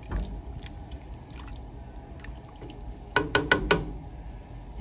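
Soup being stirred in a pot with a utensil, with liquid sloshing and faint clicks. About three seconds in come four or five quick, sharp, ringing knocks of the utensil against the pot.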